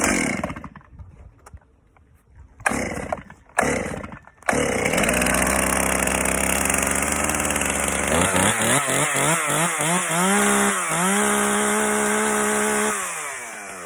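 Two-stroke chainsaw being pull-started: a few pulls of the starter cord, then it catches about four and a half seconds in and keeps running. About eight seconds in it is revved up and down several times, then held at high revs, and near the end it drops back down. It starts now that its flooded combustion chamber has been cleared.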